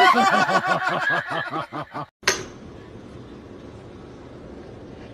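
A person laughing in a quick run of short, pitched bursts for about two seconds. It stops at a sudden cut, after which only a steady low hiss remains.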